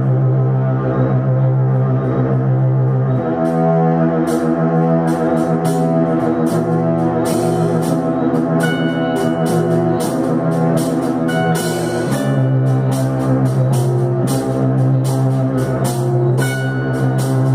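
Instrumental psychedelic rock jam: drums, synthesizers and electric guitars over a sustained low droning chord. About three seconds in, drum and cymbal hits come in and grow busier.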